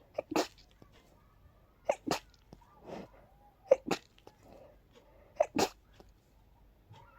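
A person sneezing four times in quick succession, about one sneeze every two seconds. Each is a short 'ah' intake followed by an explosive wet 'choo': allergic sneezing from pollen.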